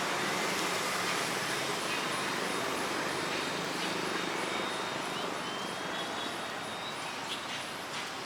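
Steady outdoor background noise: an even hiss that holds at one level, with a few faint high thin tones and light clicks.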